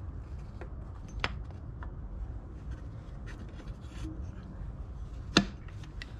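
Hands working a snowmobile's rear idler wheels and axle into the suspension rails: light rubbing and a few small clicks, with one sharp click about five seconds in, over a low steady rumble.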